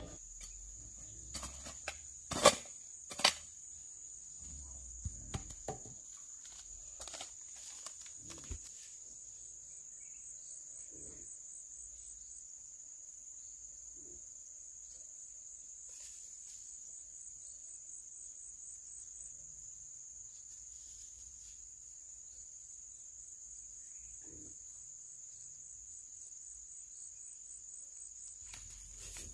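Steady, high-pitched drone of an insect chorus. In the first few seconds a metal hoe chops into stony soil: two sharp strikes a couple of seconds in, then lighter scrapes and knocks.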